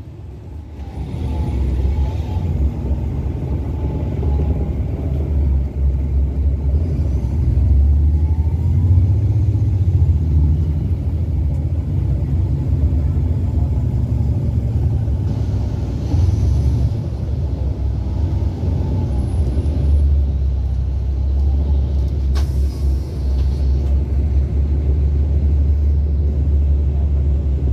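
Cabin sound of a 2008 NABI 40-SFW transit bus under way: the Caterpillar C9 diesel's steady low rumble, with a fainter whine that rises and falls in pitch several times as the bus drives on.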